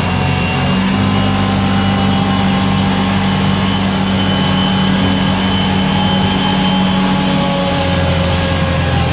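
Can-Am Commander 800 side-by-side's V-twin engine running steadily while under way, its pitch shifting slightly about a second in and again near the end.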